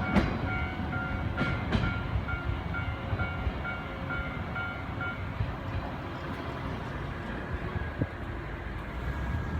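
Japanese level-crossing warning bell ringing about twice a second over the rumble of a JR 185-series electric train clearing the crossing, with a few sharp wheel clacks over rail joints in the first two seconds. The bell stops about five seconds in as the crossing clears.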